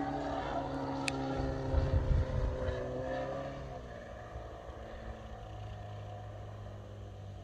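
3W-140 B4 four-cylinder two-stroke boxer petrol engine of a large radio-controlled Carbon Cub model plane in flight. Its note sags slightly, then drops in pitch and grows quieter about three and a half seconds in. Wind buffets the microphone about two seconds in.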